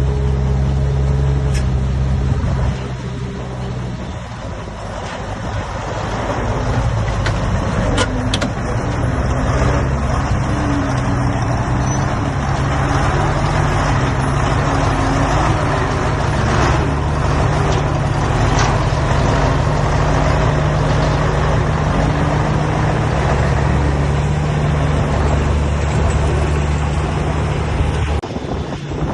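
Heavy diesel engine of earthmoving machinery running hard. It eases off about three seconds in, then builds back up and holds steady, with a few sharp metallic clanks. It drops away near the end.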